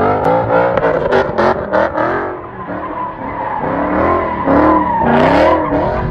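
A car doing donuts: its engine revs rise and fall rapidly as the rear tyres spin and squeal on the pavement.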